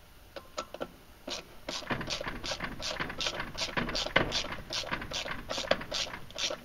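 Ratchet wrench clicking in a steady rhythm, about two to three strokes a second, starting about a second in, as it turns the secondary clutch's center bolt in to spread the sheaves open and slacken the belt.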